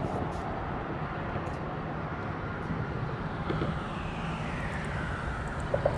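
Traffic on a highway bridge: a steady road rumble, with one vehicle's whine falling slowly in pitch through the second half. Two short knocks come near the end.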